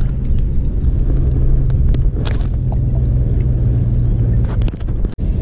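A steady low engine drone over a rumble of wind on the microphone; the drone fades out near the end.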